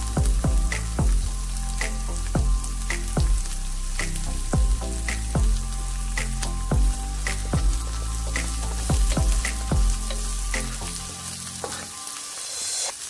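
Chopped onion and garlic sizzling in oil in a nonstick pan, stirred with a wooden spatula near the end. Background music with a steady beat plays over it and fades out near the end.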